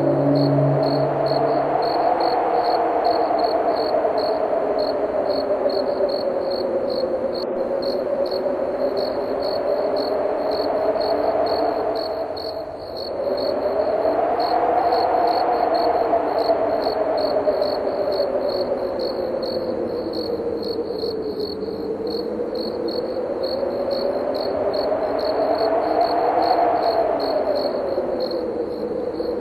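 Crickets chirping in a steady, even pulse over howling wind whose pitch slowly rises and falls, the wind easing off briefly about halfway through.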